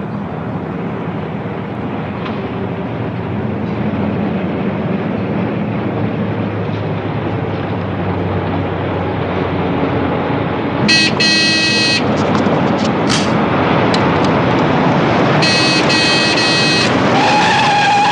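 A car's engine running as it approaches, slowly growing louder. Two shrill squeals come about eleven and sixteen seconds in, and a steady high tone near the end.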